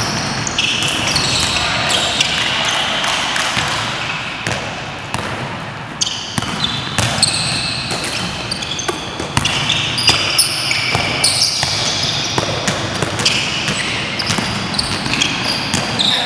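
Basketball bouncing and thudding on an indoor court, with many quick knocks and sneakers squeaking in short high-pitched chirps as players run and cut.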